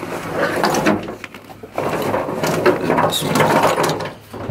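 Rustling and irregular soft knocks of handling noise, from a hand-held camera and a bag of gear being carried.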